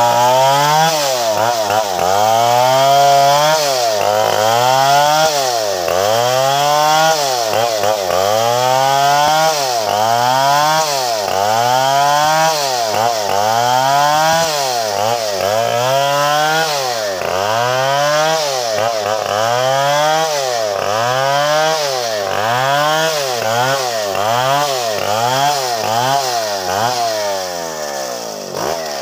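Stihl 070 chainsaw, a big single-cylinder two-stroke, cutting through a tree trunk, its engine pitch rising and falling in a steady cycle about once a second.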